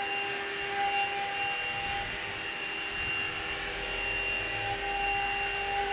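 CNC stone engraving machine running, its spindle giving a steady whine of several fixed pitches over a continuous hiss.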